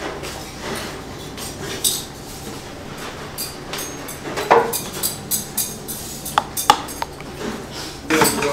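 Stainless steel spoon clinking and scraping against stainless steel and earthenware bowls as rice is scooped and stirred into soup. Scattered knocks grow more frequent in the second half, with two short metallic pings.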